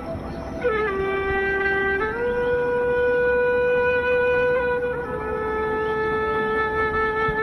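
Background music: a wind instrument playing slow, long held notes, dropping in pitch just under a second in and stepping back up about two seconds in.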